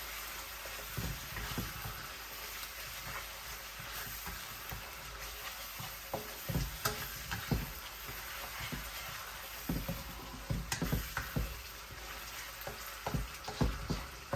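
Aromatic paste of lemongrass, galangal, turmeric, chili, garlic and fermented fish frying in hot oil, sizzling steadily. A spatula stirs and scrapes the pan, with knocks now and then, more often in the second half.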